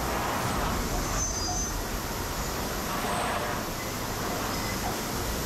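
Steady factory din in an electroplating shop: a constant rush of machinery and ventilation, with no distinct events standing out.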